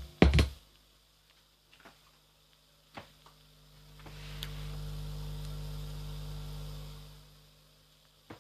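Subwoofer humming: a low steady hum swells up about four seconds in, holds for about three seconds and fades away. The hum is the fault the owner wants cured. A burst of music cuts off just after the start, and there are a few faint clicks.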